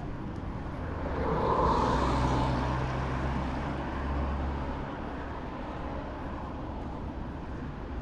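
A motor vehicle driving past close by: its engine hum and rushing tyre noise swell about a second and a half in, then the engine sound drops away near five seconds, leaving steady street noise.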